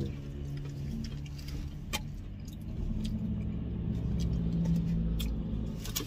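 Someone chewing food, with scattered sharp mouth clicks, over a steady low hum.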